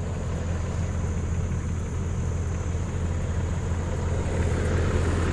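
A truck engine idling steadily with a low hum, getting a little louder toward the end.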